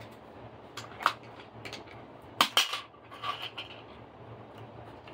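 Hard plastic clicks and clacks as a DeWalt drill battery pack's case is pulled apart and its cell block lifted out: two sharp knocks about a second in and a louder pair about two and a half seconds in, then a few lighter clatters.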